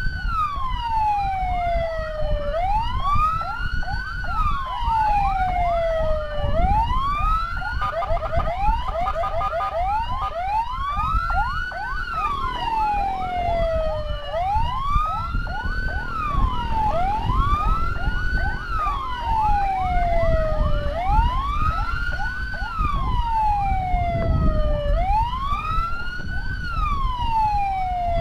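Electronic emergency siren on a wail pattern, each cycle climbing quickly and then sliding slowly back down, repeating about every three and a half seconds. A second, rapidly warbling siren tone cuts in briefly about eight seconds in. A steady low rumble of road and wind noise runs underneath.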